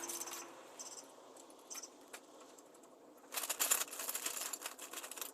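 Small metal parts and hand tools clinking and rattling: a few separate clicks, then a dense run of rapid metallic clicking starting a little over three seconds in.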